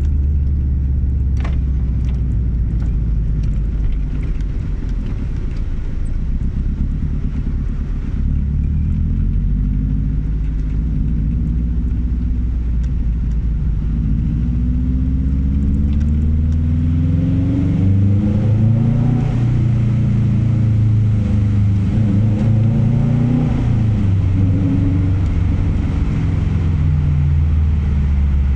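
Subaru flat-four boxer engine running with its uneven rumble, the growl that comes from its unequal-length exhaust manifold. It idles steadily at first, then is blipped and revved up and down several times in the second half.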